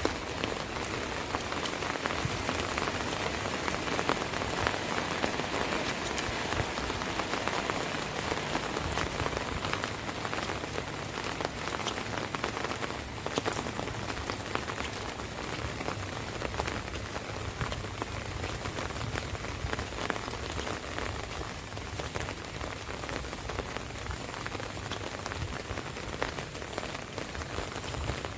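Rain falling on an umbrella: a dense, steady hiss of countless small drop hits on the canopy.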